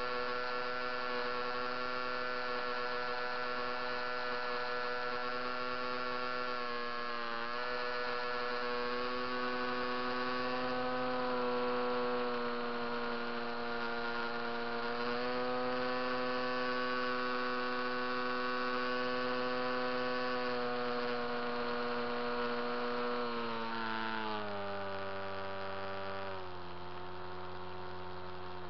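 Electric motor and propeller of a HobbyKing Coota RC seaplane, picked up by its onboard camera: a steady pitched whine that shifts slightly with the throttle, then drops in pitch in two steps near the end as the throttle is pulled back.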